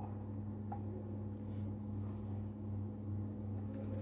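Steady low hum of the biosafety cabinet's blower, with one faint click about three quarters of a second in.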